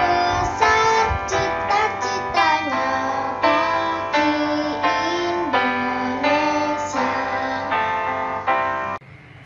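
A song with a singing voice over instrumental accompaniment, which cuts off abruptly near the end, leaving a faint hiss.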